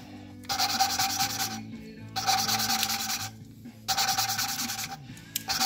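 A new valve being hand-lapped into the worn seat of a Honda XR650R cylinder head with grinding paste, spun back and forth on a suction-cup lapping stick. Gritty grinding rasp in four strokes of about a second each, with short pauses between them, as the valve face beds into the seat.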